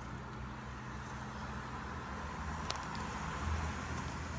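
Steady low hum of an engine running, slowly growing louder, with a few faint clicks.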